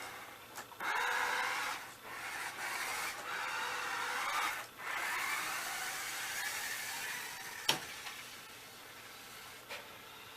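Toy remote-control car's small electric motor whirring and its wheels running on the floor, the pitch rising and falling with the throttle and cutting out a few times. A sharp knock about three-quarters of the way through.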